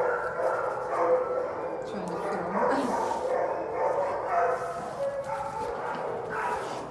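Dogs barking and yipping.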